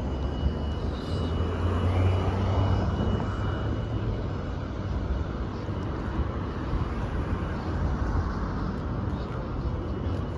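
Road traffic noise along a busy city street: a steady wash of passing cars, with a deeper vehicle rumble swelling from about one to four seconds in. A faint high steady tone sits under it for the first few seconds.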